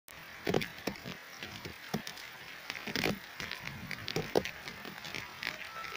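Heavy rain falling, with irregular pattering and sharp taps of drops striking close by, and a few heavier thuds, the loudest about half a second in and around three seconds.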